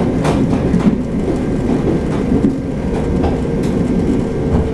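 Inside a moving train carriage: the steady low rumble of the train running on the rails, with a few sharp clicks of the wheels over rail joints and a faint steady hum.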